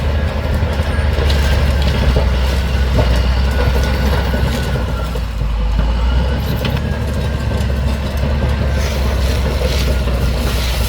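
Large 200 hp crawler bulldozer working: a steady low diesel engine drone with scattered clanks and knocks.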